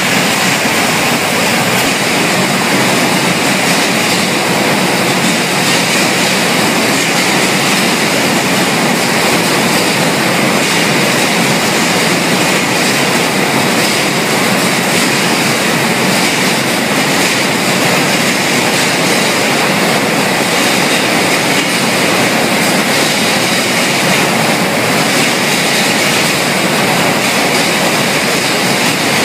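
Steady, loud machinery noise from a poultry processing line: an even rushing din with no distinct rhythm or tone, unchanging throughout.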